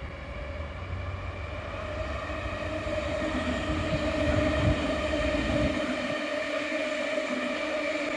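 Hamburg S-Bahn electric train approaching, its motors giving a steady whine of several tones that grows louder. A low rumble underneath stops about six seconds in.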